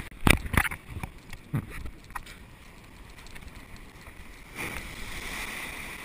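Surf washing in at the waterline, heard from right at water level: a few sharp splashes in the first second and a half, the loudest near the start, then the hiss of a wave's foam rushing in from about four and a half seconds in.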